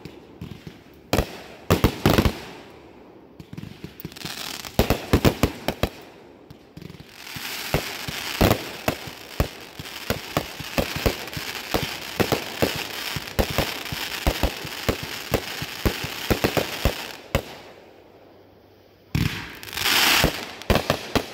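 Aerial fireworks bursting: scattered sharp bangs at first, then a dense rapid string of bangs and crackling for about ten seconds. It goes quiet, then a loud rush of noise comes near the end.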